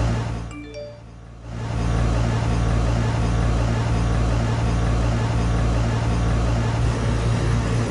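Maratherm Sentry 4-ton heat pump outdoor unit running: its LG scroll compressor and condenser fan make a steady hum. The sound drops away for about a second just after the start, then returns steady.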